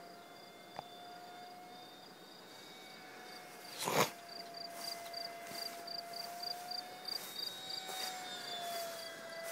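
Distant steady whine of the electric ducted fan on a HobbyKing F-18 model jet flying overhead; its pitch bends up and back down near the end as the plane passes. Crickets chirp in a steady pulse from about halfway, and a sharp knock sounds about four seconds in.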